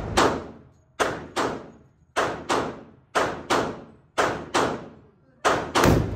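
Gunshots echoing in an indoor shooting range: about a dozen sharp reports, mostly in quick pairs about a third of a second apart, one pair roughly every second, each trailing off in a short echo.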